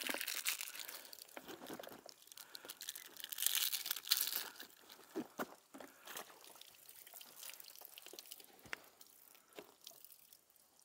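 Thin plastic water bottle crinkling and crackling in scattered bursts as it is handled, loudest around three to four seconds in.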